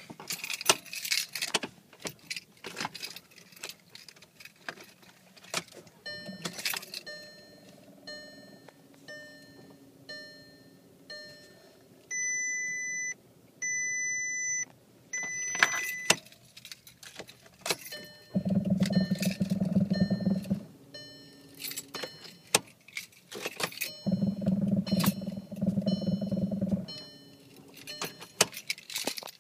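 Inside a 2011 Volkswagen Tiguan with a failing power steering unit: clicking and jangling rattles as the steering wheel shakes, with a regular ticking chime a little more than once a second. About halfway through come three long electronic beeps. Later there are two spells of low buzzing, each a few seconds long, which are the loudest part.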